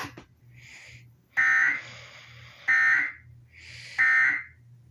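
Emergency Alert System end-of-message data tones: three short, harsh, buzzy bursts of SAME digital data, each about half a second long and evenly spaced, with fainter bursts of the same kind between them. They mark the end of the alert broadcast.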